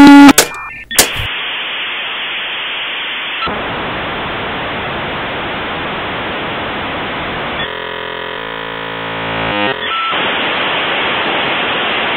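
Steady hiss of static noise, like a detuned radio or TV, following the tail of a loud, distorted beep that stops a fraction of a second in. About three-quarters of the way through, a glitchy buzzing of stacked tones breaks through the hiss for about two seconds.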